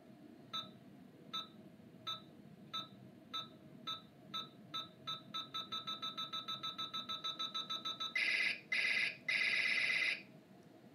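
Electronic laser sound from a Thinkway Stars and Stripes Buzz Lightyear toy: a timer of short beeps that come faster and faster, then, about eight seconds in, three louder laser shooting blasts.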